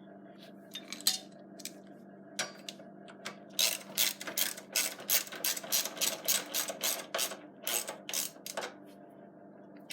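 Ratchet wrench clicking while a 12mm caliper mounting bolt on a motorcycle front brake is run in: a few scattered clicks, then a quick run of ratchet clicks, about four a second, for about five seconds.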